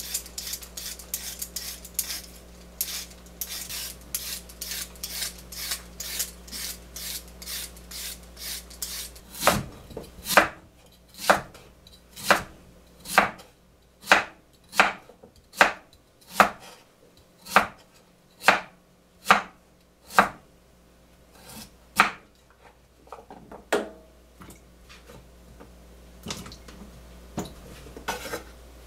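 A vegetable peeler scraping a carrot in quick strokes, about three a second, then from about nine seconds in, a cleaver chopping a pale root vegetable on a wooden cutting board, one knock a second, thinning out near the end.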